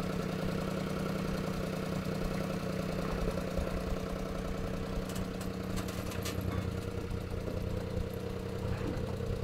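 Mini truck's small engine idling steadily and evenly, running again after sitting unused for almost two years.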